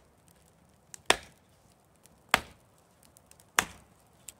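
Hults Bruk Almike hatchet chopping into a green alder stick on a wooden stump chopping block: three sharp strikes about a second and a quarter apart.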